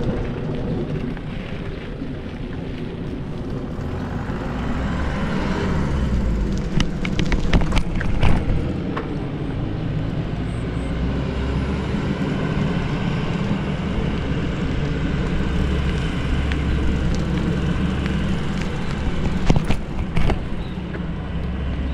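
Riding a bicycle along a concrete road: steady wind rush on the microphone and tyre rumble, with a few sharp knocks about a third of the way in and again near the end.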